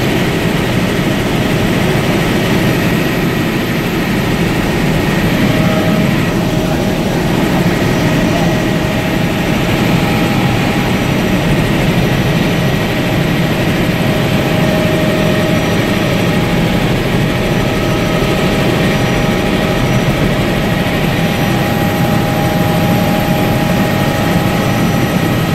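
Helicopter in flight heard from inside the cabin: a loud, steady drone of engine and rotor, with a few faint steady whining tones over it.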